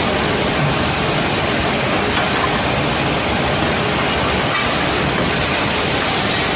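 Woodworking finger-joint line running: a steady, loud machine noise with no distinct strokes or pauses.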